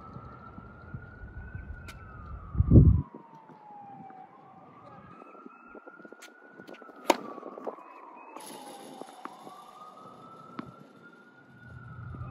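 An emergency-vehicle siren wailing, its pitch sweeping slowly up and down three times. A brief low thump comes just under three seconds in, the loudest moment, and a sharp click comes about seven seconds in.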